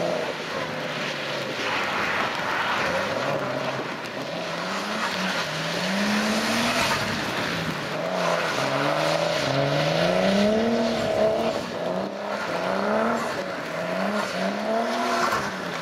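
Nissan Skyline's engine revving up and down over and over while drifting, the pitch climbing in quick sweeps about once a second as the throttle is worked, over a hiss of tyres on wet tarmac.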